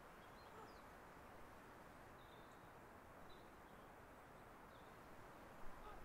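Near silence with a faint outdoor hiss and a few faint, scattered bird chirps.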